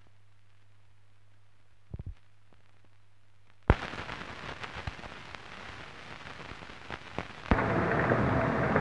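Crackle and scattered pops of an old 1930s optical film soundtrack. A low hum fills the first few seconds; then a sharp click sets off steady crackle, which turns into a louder, denser hiss near the end.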